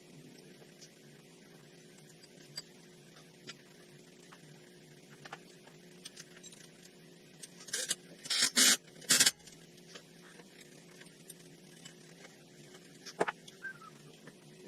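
Hand tools and metal parts handled during ATV front-end reassembly: scattered light clicks, and a quick cluster of three sharp metallic clatters about eight seconds in, over a steady low hum.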